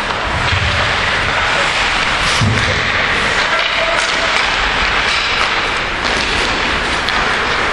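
Ice hockey game in an indoor rink: steady scraping hiss of skates on the ice with sticks and puck clattering, and a heavy thud about two and a half seconds in.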